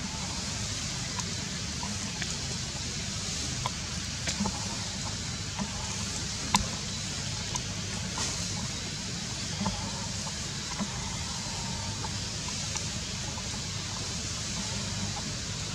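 Steady outdoor hiss and low rumble with scattered sharp clicks and crackles of dry leaf litter, the loudest about six and a half seconds in.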